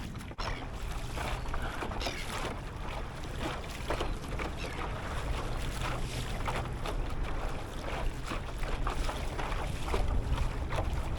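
Water lapping and sloshing against a kayak hull, with wind rumbling on the microphone.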